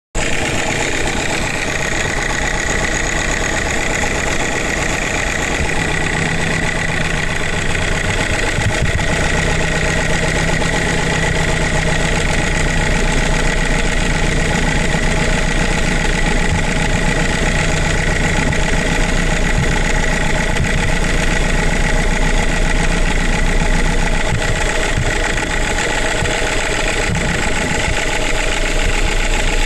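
Subaru Legacy 2.5-litre flat-four engine idling steadily with a knock, which the uploader's tags put down to a timing belt tensioner problem. A steady high whine runs along with it.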